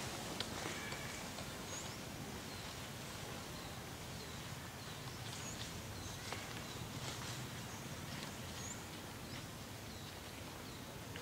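Outdoor tree-canopy ambience: a steady low background noise with faint, scattered short high chirps of small birds.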